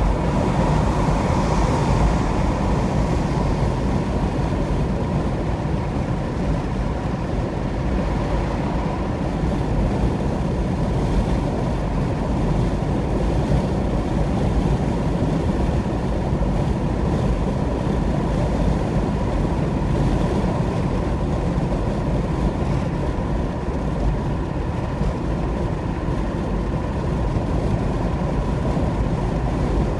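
Car driving at highway speed on an interstate: steady low road and tyre noise with a faint steady whine.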